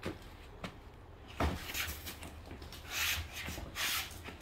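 A heavy cardboard flat-pack cabinet box being handled: a few knocks and a thump in the first second and a half, then two scraping rubs of cardboard near 3 and 4 seconds in as it is tipped down onto a dolly.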